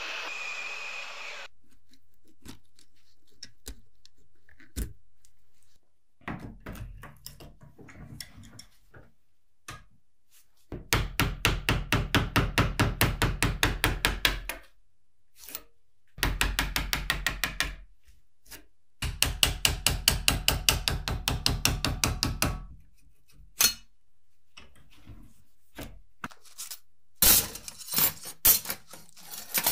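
Rapid runs of light metal-on-metal hammer taps, about eight or nine a second, driving a pointed tool in between the rusty steel laminations of an old transformer core to split them apart. A blowing hiss stops in the first two seconds. Near the end, loose steel plates clink sharply as they are pulled off the core.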